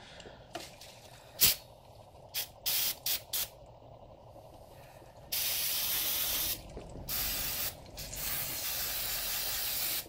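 Aerosol brake parts cleaner spraying onto a motorcycle's front brake caliper: several short bursts, then longer sprays of one to two seconds each.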